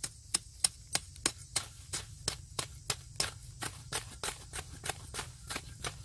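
Knife blade chopping into grass and soil in quick, even strikes, about three a second.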